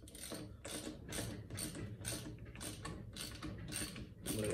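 Socket ratchet clicking as it turns the screw of a valve spring compressor, in quick repeated strokes about three a second, compressing a valve spring on a cylinder head.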